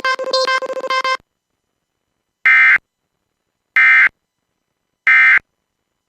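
A choppy stretch of music breaks off about a second in. It is followed by three short, identical bursts of Emergency Alert System end-of-message digital data tone, about 1.3 seconds apart, marking the close of the EAS weekly test.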